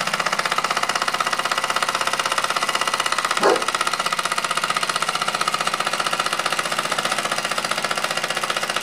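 Mamod SE2A toy steam engine running on steam, its oscillating cylinder chuffing in a rapid, even beat; the piston is worn, though the cleared exhaust now lets it run. A short note sounds once about three and a half seconds in.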